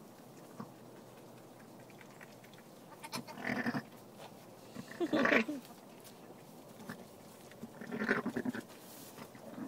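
Sheep bleating in three short calls a couple of seconds apart, from a ewe and her newborn lamb just after lambing.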